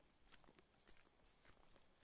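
Faint footsteps of several people in sandals walking on a dirt trail strewn with dry leaves: soft, irregular steps.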